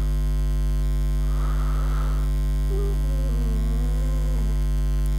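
Steady electrical mains hum on the recording, a low hum with its overtones. Faintly behind it come a brief hiss about a second and a half in and a thin wavering tone in the middle.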